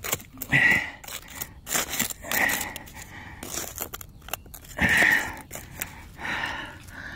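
Digging tool scraping and prying in hard-packed dirt around a wedged bottle: irregular scrapes, clicks and small knocks, with a few louder scraping strokes, and effortful breaths between them.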